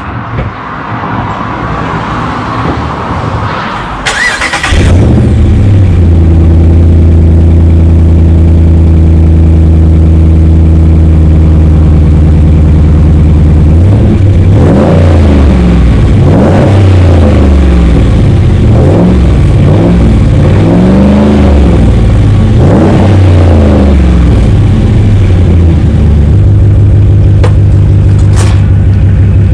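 Ram 1500's Hemi V8 cold-started through a new Totalflow dual muffler exhaust. It cranks for about four seconds, catches and settles into a loud steady idle, is revved up and down several times in the middle, then drops back to idle.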